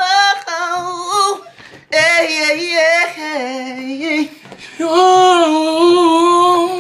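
A man singing unaccompanied in a high voice: three long held phrases with wavering pitch and short breaks between them.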